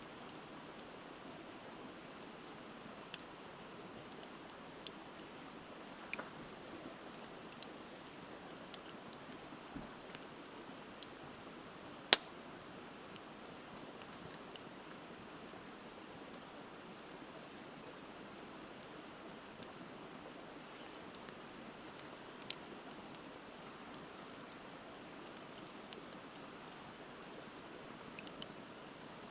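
Bonfire crackling with scattered sharp pops, one much louder pop about twelve seconds in, over the steady rush of a river.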